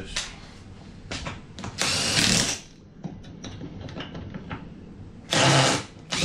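Power drill run in two short bursts, about two seconds in and near the end, with small clicks and knocks of hand work between.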